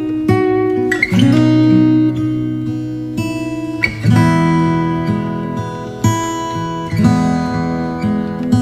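Background music: strummed acoustic guitar chords, a new chord struck about every second and left to ring.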